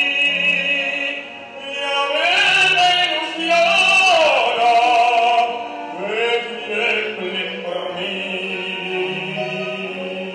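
A tenor sings in operatic style with vibrato, accompanied by a small orchestra, holding a long high note in the middle of the phrase.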